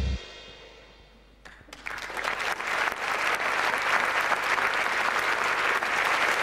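Studio audience applauding: the last chord of the theme music dies away, and about a second and a half in the clapping starts, building within a second to steady, dense applause.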